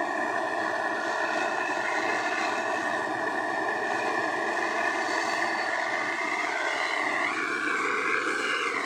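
A steady engine drone with several held tones that bend and shift in pitch near the end.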